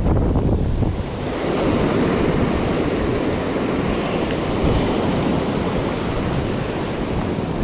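Ocean surf washing on the beach with wind buffeting the microphone: a steady rushing noise with gusty low rumble.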